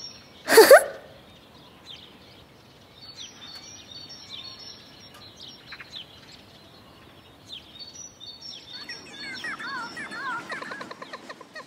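Background birdsong: small birds chirping and twittering, busier in the last few seconds. About half a second in, a short, loud swish sound effect falls in pitch.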